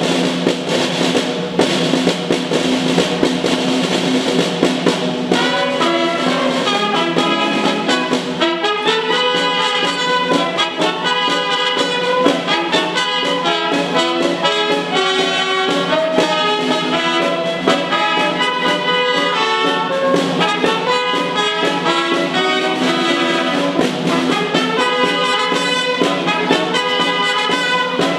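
Live wind ensemble of flutes, clarinets, saxophone and trumpets playing a tune. Held chords for the first few seconds, then a busy melody of short notes from about five seconds in.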